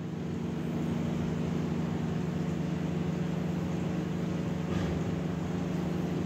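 Steady low mechanical hum, even and unchanging, with no animal call.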